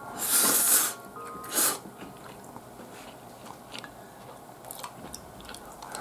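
Close-miked eating of omelet rice from a wooden spoon: a loud rush of noise as a spoonful goes into the mouth, a shorter one about a second and a half in, then quiet chewing with small clicks, and another loud rush as the next spoonful goes in at the end.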